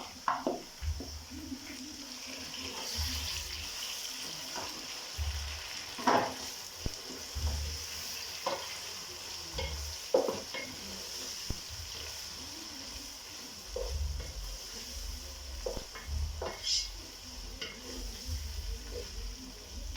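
Tomatoes and fried onions sizzling in hot oil in a pot while being stirred with a wooden mwiko, the stick knocking and scraping against the pot every few seconds.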